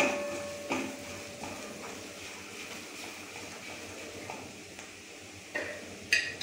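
Silicone spatula stirring onions and chili powder frying in oil in a stainless steel kadhai, with a few knocks against the pan: the first, right at the start, rings briefly. A faint steady sizzle runs underneath.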